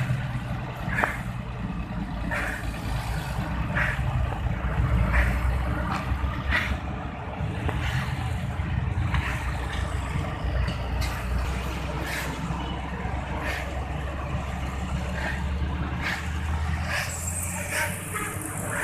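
Road traffic dominated by heavy trucks: engines give a steady low rumble, with short sharp sounds recurring about every second or so.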